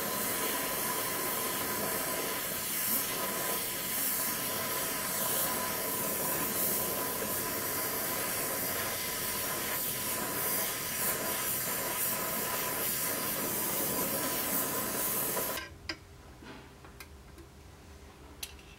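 Gas torch burning with a steady, loud hiss as it plays on steel. The hiss stops abruptly about three-quarters of the way through, leaving a quiet stretch with a few light clicks.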